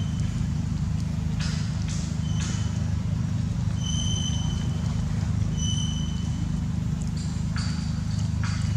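A steady low motor hum, with a few brief rustles and two short high chirps about four and six seconds in.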